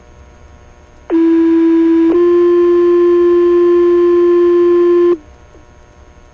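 Two-tone sequential fire pager alert sent over the dispatch radio: a loud steady tone for about a second, then a slightly higher steady tone held for about three seconds, which sets off the volunteer firefighters' pagers.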